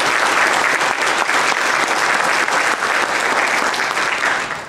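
Audience applauding, a dense steady patter of many hands clapping that dies away near the end.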